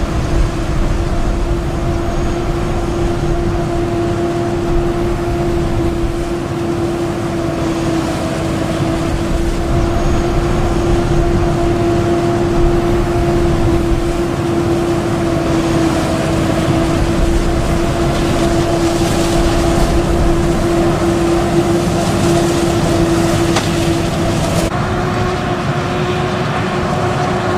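Steady machine drone: a constant hum over a low rumble, stepping slightly higher in pitch near the end.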